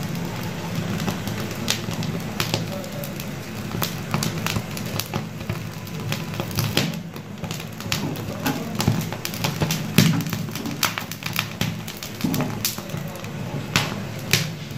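Mutton trotters singeing over a low gas flame: irregular crackling and sizzling of burning hair and skin, with sharp clicks over a steady low hum.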